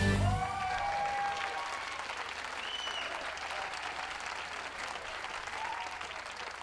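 Audience applauding, the clapping fading out gradually toward the end.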